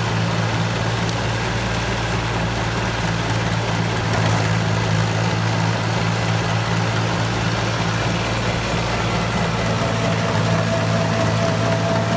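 Yanmar Ke-2 compact tractor's diesel engine running steadily under load while its rear rotavator tills the soil. A faint whine joins near the end.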